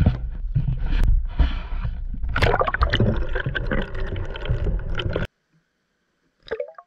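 Muffled, continuous water sloshing and gurgling, as picked up by a camera in and at the edge of the pond, cutting off abruptly about five seconds in. A short chirp-like sound and a couple of clicks follow near the end.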